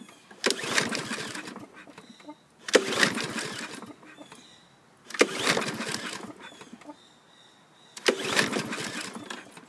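Briggs & Stratton 675 EXI engine on a walk-behind mower being pull-started four times, about every two and a half seconds. Each pull turns the engine over with a sharp burst that fades away, and it does not catch: a no-start that the owner puts down to stale gas and a dirty carburetor.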